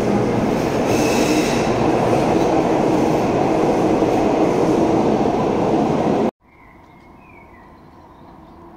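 A Cologne KVB Stadtbahn light-rail train passing through an underground station: a loud, steady rumble of wheels and traction motors. About six seconds in it cuts off abruptly to much quieter street background.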